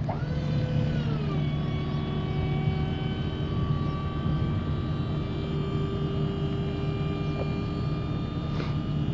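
A dump trailer's electric hydraulic pump whines as it raises the loaded bed. The whine starts sharply, drops in pitch over the first second or so as it takes the load, then holds steady. Underneath is the steady low hum of a diesel engine idling.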